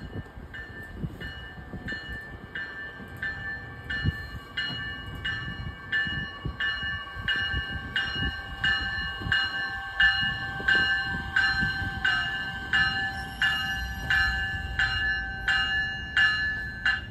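Metra Electric bilevel electric commuter train pulling into a station, its bell ringing steadily about twice a second over the low rumble of the train. A faint steady whine runs underneath.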